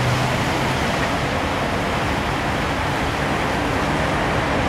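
Steady rushing noise of floodwater running across a street, with cars driving through the water.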